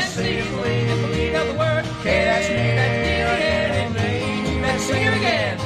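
Bluegrass string band playing at an up-tempo pace, with banjo, guitar, mandolin, fiddle and string bass over a pulsing bass line.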